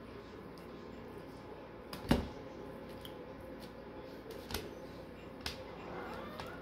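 A few sharp knocks and clicks of kitchen utensils and pans being handled: the loudest, a thump, about two seconds in, and lighter ones later. Faint voices of people talking in another room sit underneath.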